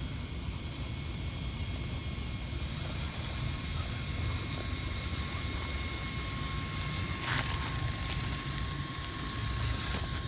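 Electric drive of a 1/10-scale Axial SCX10 RC rock crawler whining steadily as it crawls over gravel and rocks, over a low rumble. A sharp knock comes about seven seconds in.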